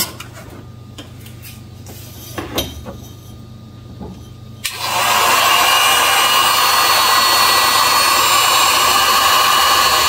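A low hum with a few faint knocks, then about four and a half seconds in a heat gun switches on and runs with a steady blowing whine, used to melt ice off a refrigerator's evaporator and fan.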